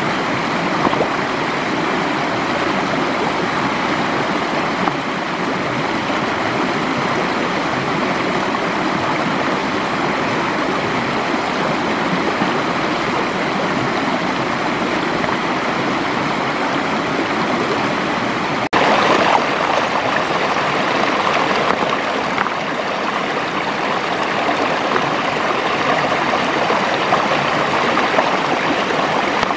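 Stream water rushing and gurgling in a steady, continuous wash. It cuts out for an instant about two-thirds of the way through and comes back a little louder.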